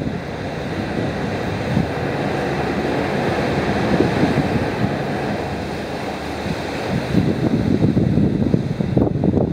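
Wind buffeting the microphone in gusts, over a steady rushing noise.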